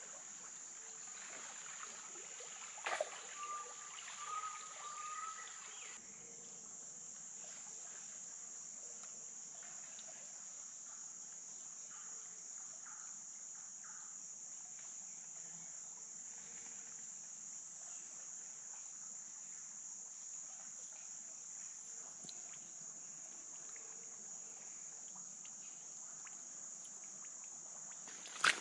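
Steady high-pitched insect buzz in the forest, with a knock and a few short, slightly rising whistled notes about three seconds in.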